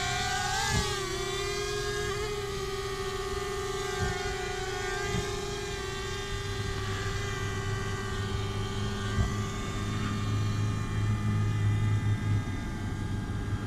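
Whine of a DJI Mavic Air quadcopter's propellers just after take-off, a steady pitched buzz that dips and recovers in pitch about half a second in as the drone settles into its hover. A lower steady hum joins about halfway through.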